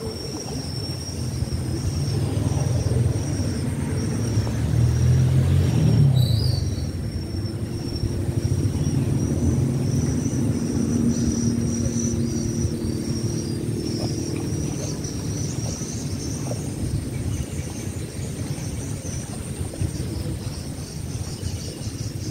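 Outdoor rumble, loudest about five or six seconds in. A distant motor hums steadily through the middle, and a thin high whine runs throughout.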